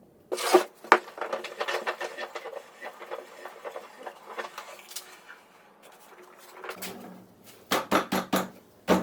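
Workshop handling noise: a sudden run of sharp knocks and rattles about a third of a second in that thins out over the next few seconds, then a quick cluster of heavier knocks near the end.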